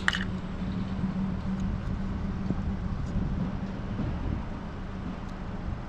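Steady low background rumble with a steady hum, and a few faint clicks of handling.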